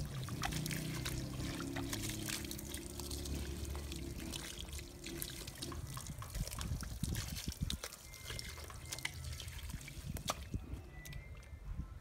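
Water from a hose pouring onto a soaked rug on concrete, splashing and trickling steadily, thinning out near the end.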